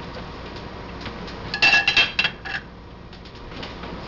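Stainless-steel kitchen tongs clinking and clattering, a quick cluster of sharp metallic clinks with a short ring, about a second and a half in, as they are set down.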